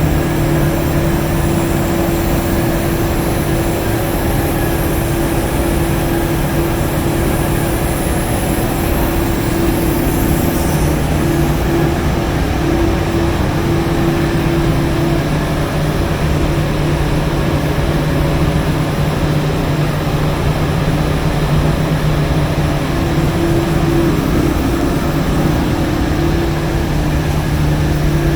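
Steady machinery noise of an industrial steam boiler and wet scrubber plant: motors, fans and pumps running with a constant low hum over a dense mechanical din. A high hiss above it stops about eleven seconds in.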